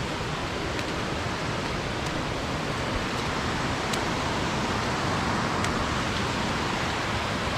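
Waterfall rushing: a steady, even wash of falling water with no change over the few seconds.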